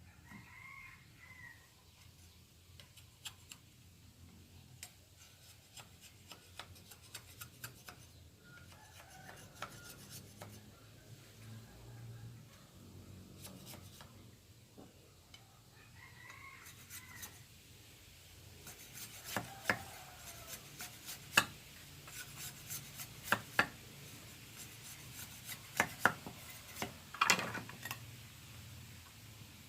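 Bamboo being worked by hand: scattered scraping and rubbing strokes with sharp clicks and knocks, getting denser and louder in the second half. A rooster crows faintly in the background several times.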